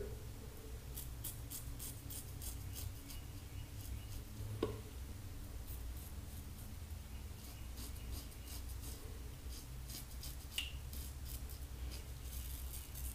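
Fine Accoutrements Marvel double-edge safety razor scraping through mustache stubble on the upper lip: a faint, scratchy crackle in short strokes.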